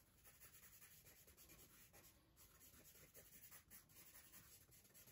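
Very faint pencil strokes scratching on drawing paper as a small tree is sketched, with a cluster of short strokes about three seconds in.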